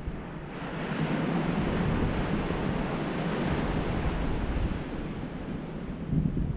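Ocean surf breaking and washing up the beach: a rushing hiss that swells about half a second in and holds, with wind buffeting the microphone.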